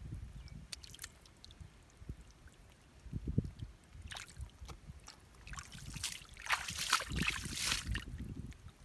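Hands splashing and sloshing through shallow muddy water while groping in the mud for fish, with a few dull low thumps; the splashing grows busier and louder from about four seconds in.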